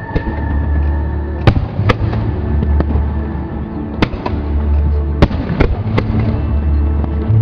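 Fireworks bursting overhead: about six sharp bangs, some close together, over loud music with long, deep bass notes.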